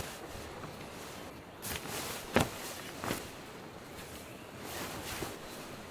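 Canvas tent fly being pulled and handled, with fabric rustling and footsteps on grass, and a sharp knock about two and a half seconds in.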